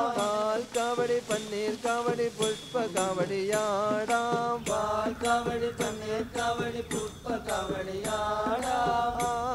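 Music: a chanted vocal melody over a steady held drone, with a regular beat of short percussive strokes.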